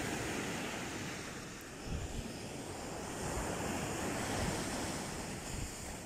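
Small waves breaking and washing up a sandy beach in a steady surf hiss, with wind gusting on the microphone in low rumbles about two seconds in.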